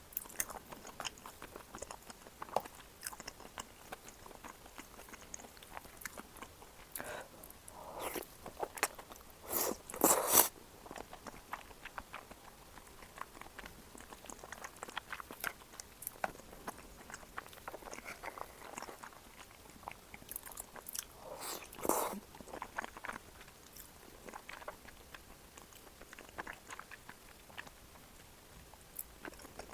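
Close-miked eating sounds: chewing and biting on shrimp cream tteokbokki, with many small wet mouth clicks. There are louder bursts of eating noise about ten seconds in and about twenty-two seconds in.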